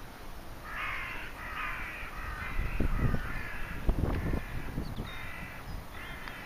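A crow cawing repeatedly, a run of about six harsh calls, with a low rumble on the microphone around the middle.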